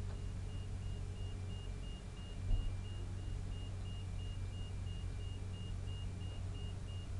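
Diesel engine of a trailer-mounted McCloskey screening plant running steadily, with a faint high electronic beep repeating at an even rate. A single knock about two and a half seconds in.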